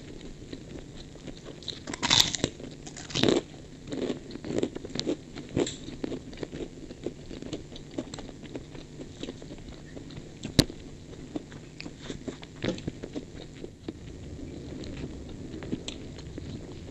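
Close-up eating sounds of a mouthful of fried rice with a crisp cracker (kerupuk): two loud crunching bites about two and three seconds in, then a run of softer crunches while chewing. A single sharp click comes about ten seconds in.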